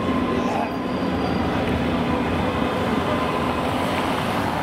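Steady low rumble of idling and slow-moving vehicle engines on a city street, with no sudden events.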